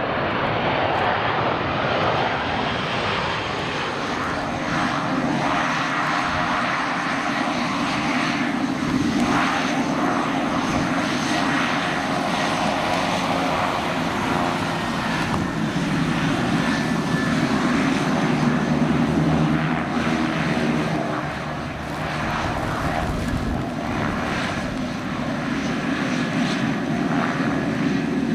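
Aircraft engine noise: a twin-jet airliner of the Boeing 737 type on final approach, then a Beechcraft King Air twin-turboprop running its engines as it rolls along the runway, propellers turning. The sound is a steady, unbroken engine noise.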